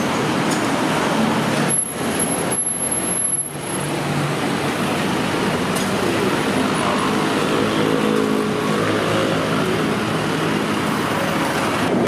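City road traffic: a steady wash of car and bus engine and tyre noise from the busy street beside the sidewalk, with a deeper engine hum joining in about halfway through.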